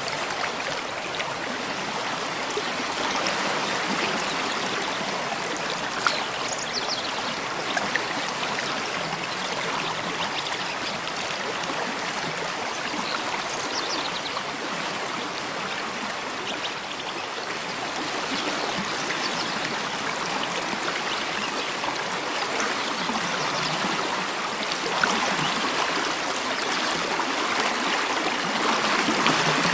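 Running water, a steady rushing flow that grows a little louder near the end.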